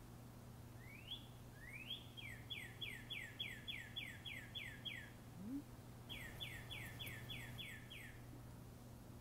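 A songbird singing two phrases of quick falling whistled notes, about four a second, the first led in by a couple of rising notes, with a short pause between phrases. A faint steady low hum runs underneath.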